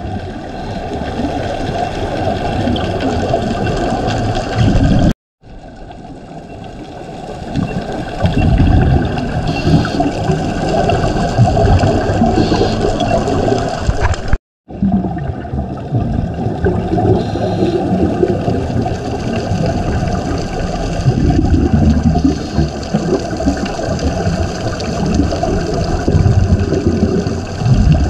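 Muffled underwater rushing and bubbling of a scuba diver's regulator exhaust, heard through a camera's underwater housing, swelling in surges. It cuts out briefly twice, about 5 and 14 seconds in.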